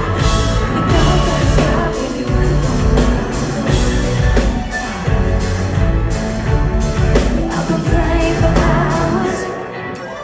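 Live pop-rock band and singer playing loud through a concert PA, with heavy bass, heard from the audience; the music drops away briefly near the end before coming back in full.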